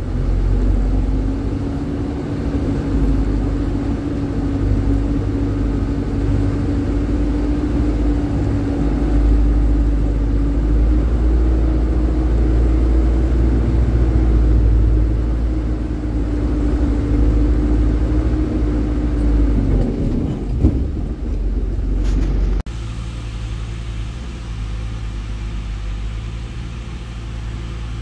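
Dump truck engine running steadily while under way, a loud, even drone. About twenty seconds in, the engine note drops away. Shortly after, the sound cuts abruptly to a quieter, low engine hum.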